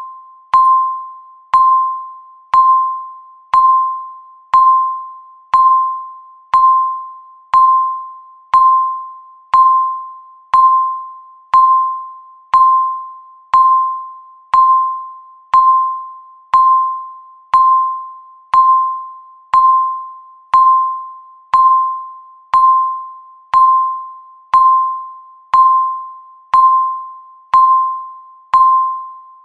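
Countdown timer beep sounding once a second: a single clear high tone, each beep struck sharply and fading away before the next.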